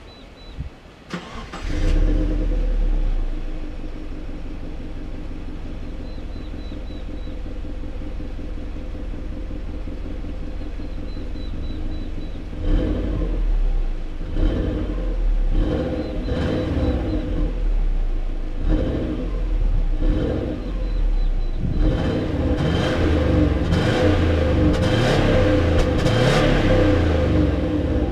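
2002 Subaru Legacy Blitzen's EJ206 twin-turbo 2.0-litre flat-four, through its stock Fujitsubo exhaust, starts about two seconds in and settles into a steady idle. From about halfway it is blipped in short, separate revs, and near the end it is revved repeatedly in a longer run.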